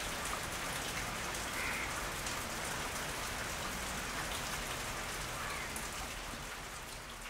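Steady rain falling, an even patter that eases slightly near the end.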